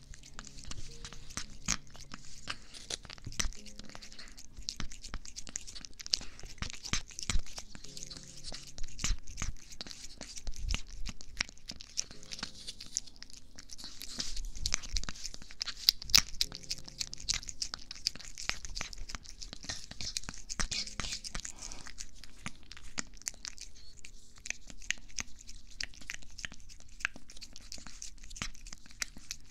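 Cat licking a squeeze-tube cat treat right at a binaural microphone: a fast, continuous stream of wet licking and smacking clicks.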